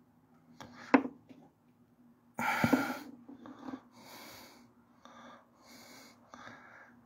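A man breathing heavily close to the phone's microphone, in a string of short wheezy, snorting breaths. There is a sharp click about a second in and a louder noisy rush with a thump just after two seconds.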